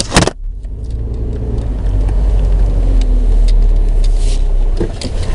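Car driving, heard from inside the cabin: a steady low rumble of engine and road that grows louder over the first two seconds. Two sharp knocks come right at the start.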